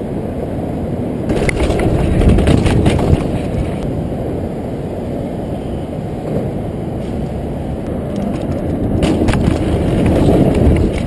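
Downhill mountain bike rolling and rattling over ramps and concrete, with sharp clatters about a second in and again near the end, over a steady low rumble of freeway traffic and wind.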